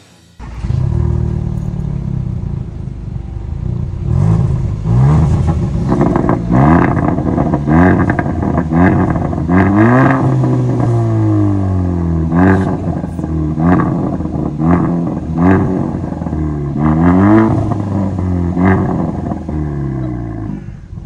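Kia Soul engine revved through an aftermarket exhaust with a vacuum-operated valve. It runs low and steady for a few seconds, then gives a long series of quick blips, each rising and falling in pitch about once a second, with one longer rev held and let fall around the middle.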